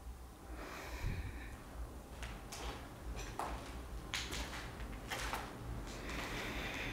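Scattered faint clicks and knocks with soft rustling and hissy noise between them.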